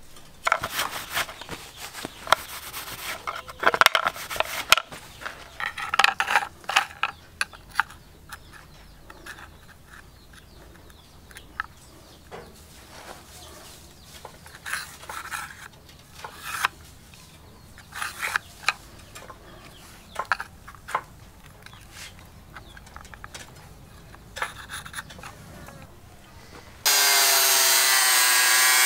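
Intermittent rubbing, scraping and light knocks from a steel knife blade and a sheet of blue PVC being handled and traced on a wooden stump. Near the end, a hand-held electric angle grinder with a cutting disc switches on and runs at speed with a loud, steady whine.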